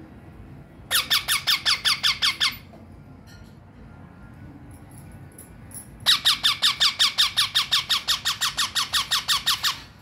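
Young green parakeet squawking in two bouts of rapid, evenly repeated calls, about seven a second: a short burst about a second in and a longer one from about six seconds in.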